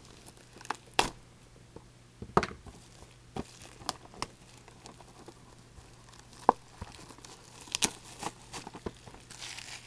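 Plastic shrink wrap being torn and crinkled off a factory-sealed box of hockey cards, in irregular sharp crackles and short rips.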